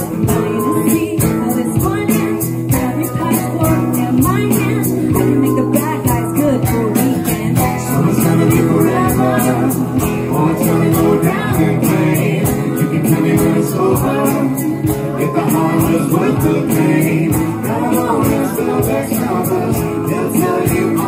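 Instrumental break of a live acoustic song: a steel-string acoustic guitar strummed in a steady rhythm under a harmonica lead played into a microphone.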